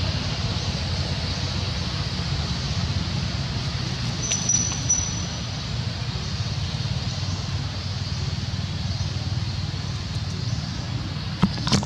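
Steady outdoor background noise, a low rumble with a hiss over it. A brief thin high whistle comes about four and a half seconds in, and two sharp clicks come near the end.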